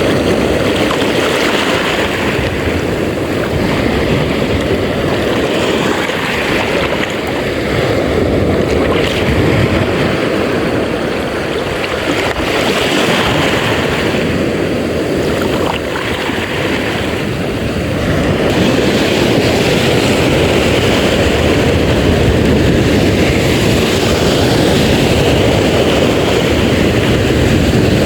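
Steady rush of wind and sea water noise at sea, buffeting the microphone, a little louder after about two-thirds of the way through.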